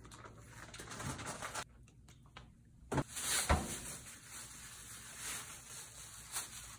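Handling sounds at a refrigerator: a plastic bag of grapes rustling, then the fridge door shutting with a couple of knocks about three seconds in, followed by more rustling of plastic.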